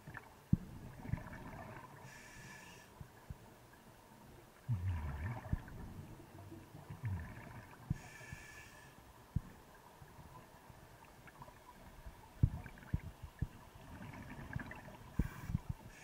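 Scuba diver breathing through a regulator underwater: three hissing inhalations about six seconds apart, with rumbling, bubbling exhalations between them. Scattered small knocks throughout.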